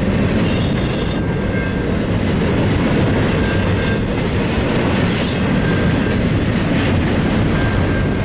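Double-stack intermodal container cars rolling past on steel wheels: a loud, steady rail rumble, with brief high wheel squeals about half a second in and again about five seconds in. The crossing's low-pitched Safetran electronic bell keeps dinging faintly under the train noise.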